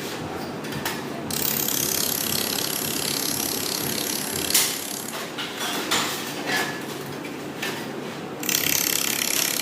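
Laser welding machine at work: a stretch of high hissing from about a second in to about four and a half seconds, sharp clicks after it, and another stretch of hissing near the end.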